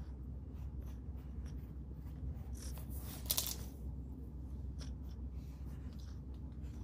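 Faint scratchy rubbing as a hand strokes a long-haired Persian cat's fur, over a low steady rumble. About three seconds in comes a louder rustle and knock as the phone filming is bumped.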